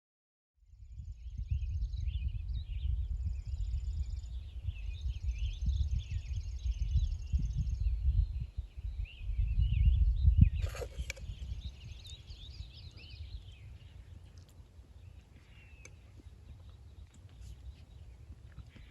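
Gusty wind buffeting the microphone with a heavy low rumble, over birds chirping and trilling; a single sharp knock about ten seconds in. The wind and birdsong die down in the last few seconds.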